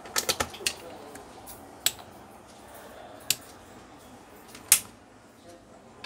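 A quick run of sharp clicks and taps in the first second, then single clicks about two, three and a half and five seconds in, the last the loudest.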